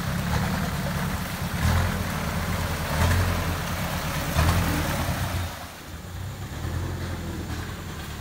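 A 4x4 truck's engine revving in three surges about a second and a half apart, then easing off about five and a half seconds in.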